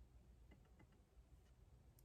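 Faint desk clicks from studying: about four light taps in quick succession a little after half a second in, over a low, quiet room hum.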